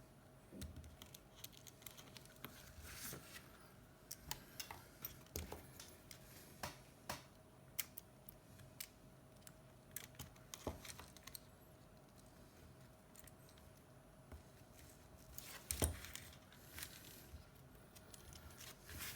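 Scattered faint clicks and taps of small tools and phone parts being handled during an iPhone 7 screen repair, with one louder knock about sixteen seconds in, over a faint steady hum.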